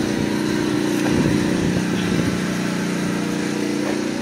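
Pressure washer running with a steady drone while its water spray hisses against a semi truck's wheel and tyre.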